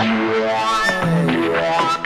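Background music: an instrumental passage of held, changing notes, with no singing.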